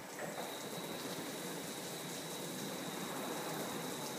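A LeisuWash RL-360 touch-free car wash spraying water over a car from its moving overhead arm: a steady hiss of spray. A thin, steady high whine joins it about half a second in.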